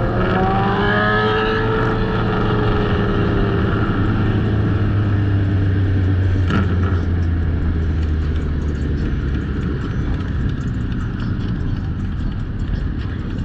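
Suzuki SV650 motorcycle engine revving up as the bike accelerates, then running steadily at speed and easing off slightly near the end. A brief click comes about halfway through.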